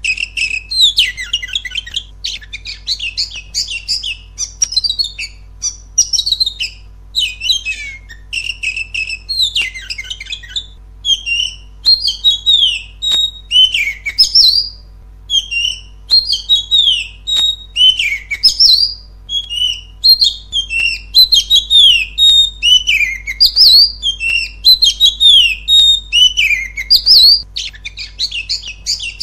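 Oriental magpie-robin (kacer) singing a loud, nearly continuous string of rapid, varied whistled notes, many of them falling in pitch, with only brief gaps. It is a song recording of the kind played as 'pancingan' to spur captive magpie-robins into singing.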